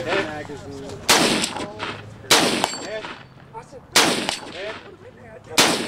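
Four gunshots fired in steady succession on a competition stage, about one and a half seconds apart.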